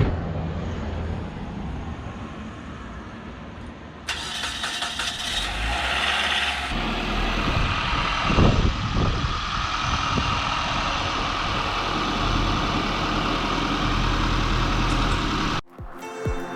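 Nissan Altima's 2.4-litre inline-four engine running steadily, with an abrupt change in the sound about four seconds in. The car is running again after a no-start, cranks-but-won't-run fault.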